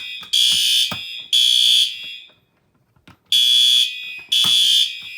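Fire alarm horn sounding the temporal code-3 evacuation pattern: high, half-second blasts in threes, with a pause of about a second and a half between sets. A few light knocks fall between the blasts.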